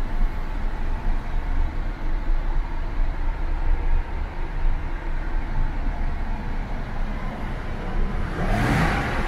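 Daimler Double Six's 5.3-litre V12 idling just after a start, a steady low rumble from inside the cabin. A brief rush of noise comes near the end.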